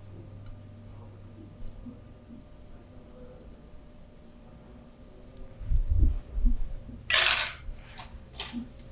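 Massage handling sounds: a few low thumps of hands on the body about halfway through, then a half-second rubbing swish and two shorter ones near the end.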